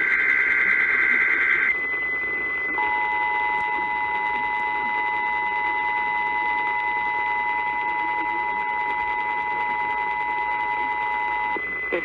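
Emergency Alert System tones received over AM radio: the last burst of the digital SAME header, a warbling two-pitch screech, ends under two seconds in. After a short pause the two-tone EAS attention signal (853 and 960 Hz) sounds steadily for about nine seconds, over static and a steady high whistle, as part of a Required Monthly Test.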